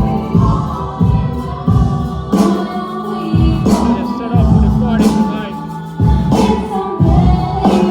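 Loud music with singing and heavy bass beats, played through a large sound system during a sound check.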